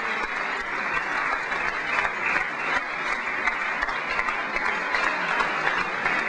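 Crowd applauding: many hands clapping steadily without a break.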